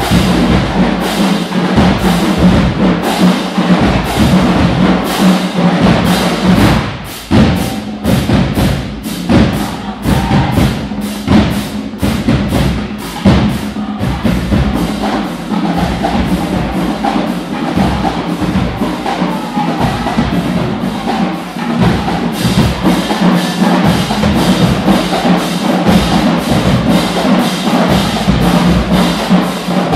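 Marching band playing: drums hit a fast, steady beat under sustained brass with sousaphones.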